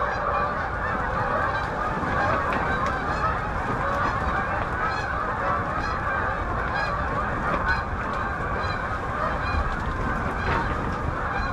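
A large flock of geese honking, many calls overlapping into a continuous din.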